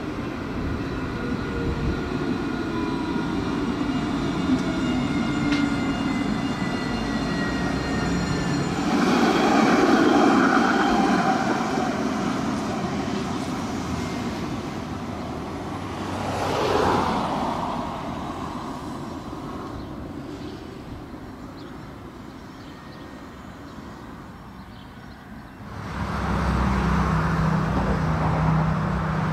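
A tram's motors whining in several slowly falling tones as it slows on its approach, then a louder rush of wheel and motor noise as it passes close, a brief swell and fall, and a long fade. Near the end the sound cuts abruptly to a jet airliner on landing approach, its engines a steady low hum.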